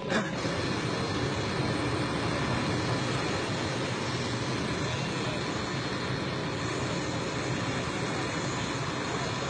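Aircraft engines running: a steady rushing noise that begins abruptly, its high hiss growing stronger about two-thirds of the way through.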